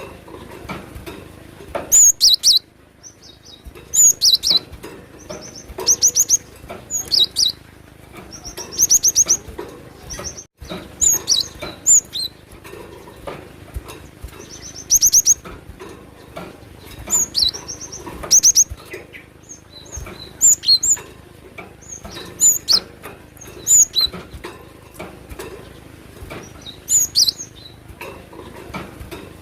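Cinereous tit (glatik batu) singing: short, rapid phrases of repeated high notes, a new phrase every second or two.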